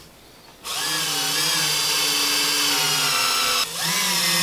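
Power drill driving screws through a pantry slide's mounting plate into the wooden unit: the motor starts a little under a second in and runs steadily for about three seconds, stops briefly, then starts again on the next screw.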